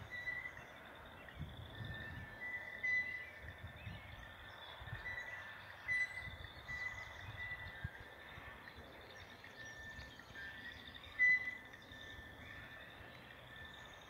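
Songbirds chirping: short high notes repeated over and over, with a thin trilling above them and a few louder calls. An irregular low rumble runs underneath.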